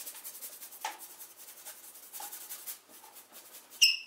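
Paintbrush scrubbing thinned oil paint onto a painting board, a soft rasping rub in quick, repeated strokes. Near the end a short, loud high chirp cuts in.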